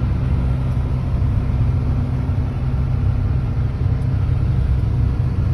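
Combine harvester's engine running steadily at idle, a constant low rumble.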